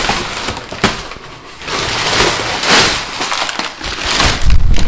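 Crumpled kraft packing paper crackling and rustling as it is pulled out of a cardboard shipping box, with a dull thump near the end.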